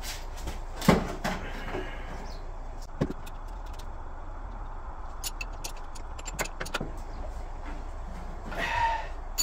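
Scattered clicks and a few light knocks of metal fittings and tools being handled as the fuel line is connected back onto an oil boiler's burner, with a run of sharp clicks in the middle, over a steady low rumble.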